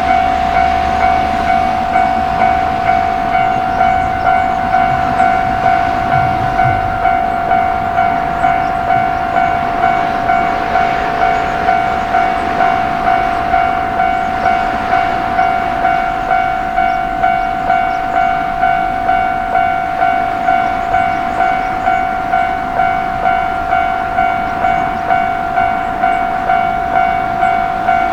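Japanese railway level-crossing alarm ringing its repeated electronic "kan-kan" warning tone, just under two strikes a second without pause, while a train runs past, its noise rising and fading in the middle.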